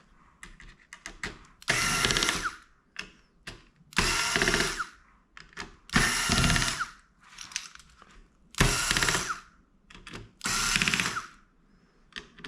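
Electric screwdriver backing out the small screws that hold a laptop's CPU cooler to the board. It runs in five short bursts of about a second each, roughly two seconds apart, each a fast ratcheting whirr, with small handling clicks in between.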